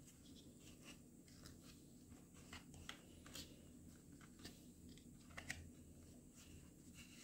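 Faint scattered crackles and clicks of fingers pressing potting soil around a plant cutting in a plastic pot, with a sharper click about five and a half seconds in.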